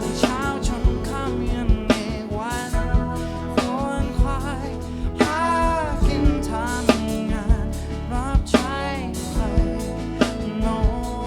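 Live band playing a song with a sung lead vocal, the drum kit prominent with regular snare and kick hits, as heard in the drummer's in-ear monitor mix.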